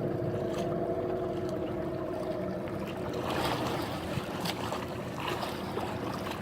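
Boat engine running with a steady hum that weakens about three seconds in, over wind and water noise, with a few light knocks.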